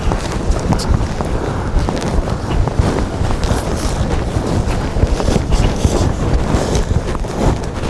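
Wind buffeting the microphone in a steady low rumble, over irregular crunching footsteps wading through deep snow.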